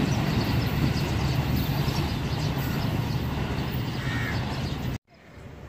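Diesel-hauled train running along the track: a steady low rumble of the locomotive engine and running gear that slowly fades. It cuts off abruptly about five seconds in, leaving only faint background sound.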